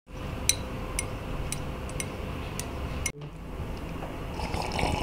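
Light, sharp clinks, about two a second, over a low hum; the sound cuts off abruptly about three seconds in, and a quieter hum then swells toward music.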